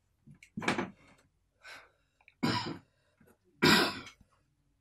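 A man coughing and clearing his throat: three short, separate coughs, the last one the loudest.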